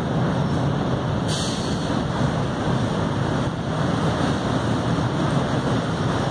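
Canadian Pacific freight train led by an EMD GP38-2 diesel locomotive, its two-stroke V16 engine and wheels making a steady, loud rumble as it crosses a steel truss bridge.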